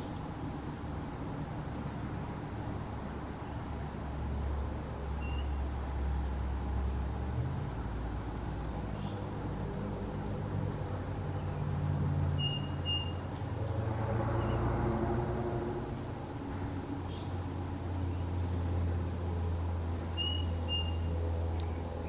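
Outdoor ambience: a low, steady engine hum from a distant motor that shifts pitch a few times, under a continuous high insect trill, with a few short bird chirps scattered through.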